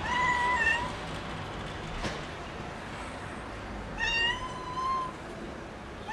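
Stray cat meowing twice: a short meow at the start and a longer, slightly rising meow about four seconds in.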